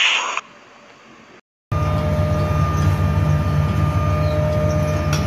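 An intro sound effect fades out over the first second and a half; after a brief gap, a fishing trawler's engine and deck machinery drone steadily, a deep hum with a steady whine above it.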